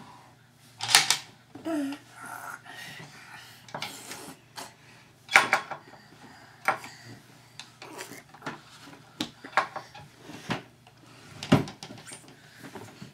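Scattered sharp knocks and clinks, about half a dozen, the loudest about a second in and about five seconds in, with a brief child's vocal sound around two seconds in.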